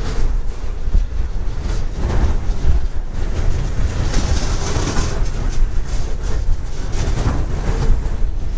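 Freight cars of a passing freight train rolling by: a steady rumble of steel wheels on the rails, with faint clicks as the wheels cross rail joints.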